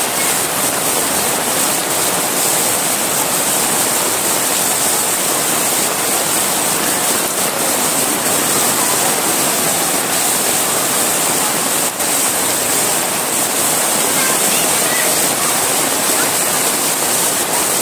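Very heavy rain pouring down in a loud, steady hiss, with water running over a flooded street.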